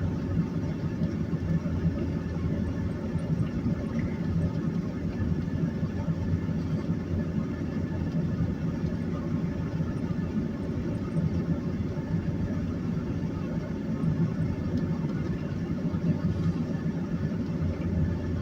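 Steady low engine and road rumble inside the cab of a 2001 Chevy Silverado 1500 pickup driving on snow-covered roads.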